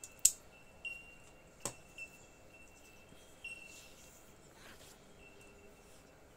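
Small sharp clicks and taps of metal tweezers working at small plastic iPod Nano end caps while old adhesive is cleaned off, the loudest tap about a quarter second in, with a faint thin high tone under them.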